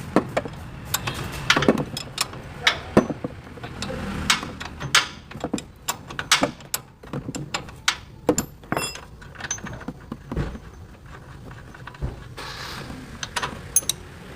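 Irregular metallic clicks, knocks and clinks of hand tools and metal parts being handled during repair work on a pickup truck, a few of them ringing briefly.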